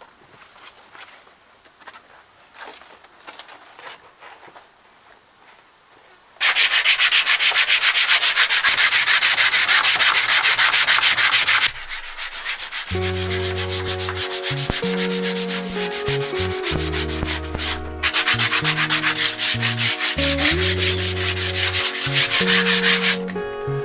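Rapid, loud rubbing or scraping strokes begin about six seconds in after a stretch of faint clicks. From about halfway through, a low pitched drone that shifts in steps every second or two runs under the scraping.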